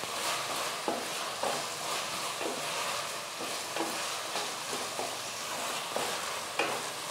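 Onions, tomatoes and herbs sautéing in oil in a stainless steel pot, sizzling steadily, while a wooden spatula stirs them with short scrapes against the pot about twice a second. The tomatoes are being cooked down until soft for the gravy.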